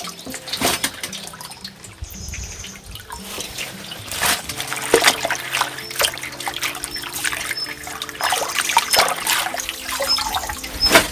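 Running water trickling and splashing, with scattered short clicks and knocks.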